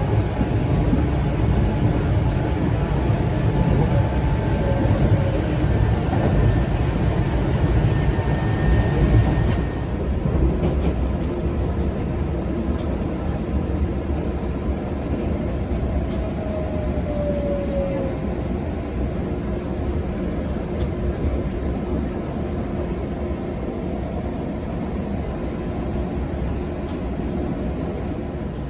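Izukyu 2100 series resistance-controlled electric train running, heard inside the passenger car: a steady rumble of wheels on rail and running gear, which drops in level about ten seconds in and then runs on more quietly.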